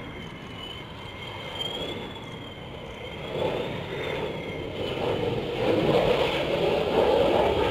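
F-16 Fighting Falcon's single jet engine passing low on landing approach: a high whine that wavers in pitch over a rushing rumble that swells, loudest in the last couple of seconds.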